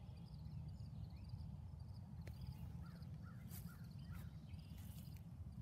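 Faint outdoor ambience: a steady low rumble with a run of short bird calls through the middle, faint high chirping, and a few brief rustles.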